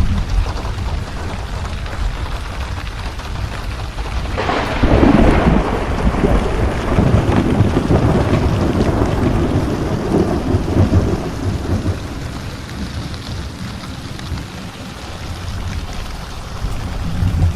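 Steady rain falling through a thunderstorm. About four seconds in, a clap of thunder breaks out suddenly and rolls on as a rumble for several seconds before fading back under the rain.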